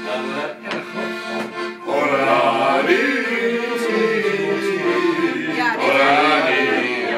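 Piano accordion playing a traditional folk tune: short rhythmic chords for about the first two seconds, then longer held chords.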